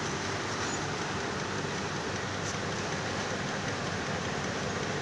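Yarn winding machine running steadily, its roller turning a row of cones as yarn unravelled from defective knitted sweater fabric winds on: an even, unbroken mechanical running noise.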